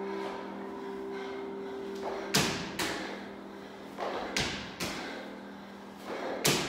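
Wall balls with a 30 lb slam ball: the ball thuds against the wall about every two seconds, and each hit is closely followed by a second thud. For the first couple of seconds, a held music chord plays underneath.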